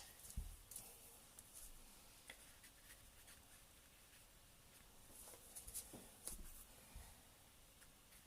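Faint scratchy strokes of a damp paintbrush working acrylic paint across the painting surface, a little busier about five to six and a half seconds in.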